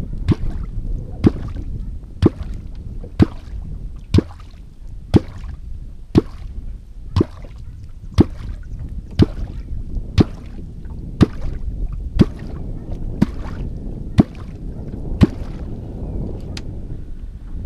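A simple svaeboi-type catfish kvok worked into the water about once a second, giving a steady run of some sixteen sharp 'kvok' pops, the last two fainter. It is the call used to draw catfish up from the bottom.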